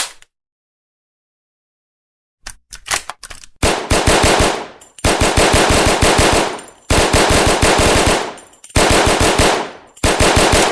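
Thompson submachine gun: a few sharp mechanical clicks of the gun being worked, then five bursts of fully automatic fire, each about one to one and a half seconds of rapid shots with short pauses between bursts.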